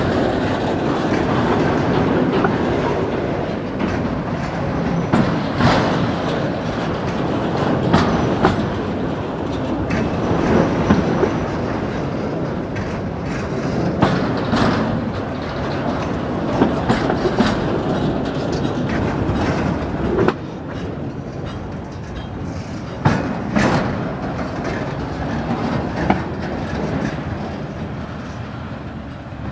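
Autorack freight cars rolling past on the rails: a steady wheel rumble broken by sharp clacks of wheels over rail joints every second or two. The sound fades near the end as the last car goes by.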